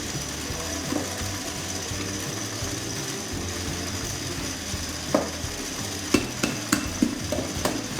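Syrniki being prepared: a spoon clicking and scraping against a dish several times in the last three seconds, over a steady hiss.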